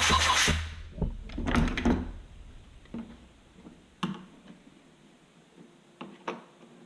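Rhythmic scrubbing of dirt off a Stihl chainsaw, stopping about a second in, followed by a couple of short scraping rubs and then a few separate light knocks and clunks of hard parts being handled.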